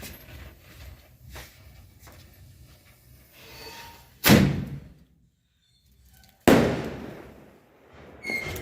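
Two firecrackers exploding, each a sharp bang with a short echoing tail, about two seconds apart. Near the end, a rapid series of high chirps begins.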